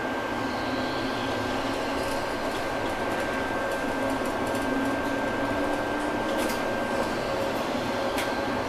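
Steady running noise heard from inside a Škoda ForCity Smart Artic tram in motion: an even mechanical hum with a thin steady whine above it, and a few faint ticks in the later seconds.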